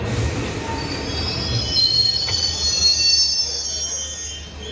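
A train's wheels squealing on the rails: a high metallic squeal of several tones comes in about a second in and fades out near the end, over a steady low rumble of the train.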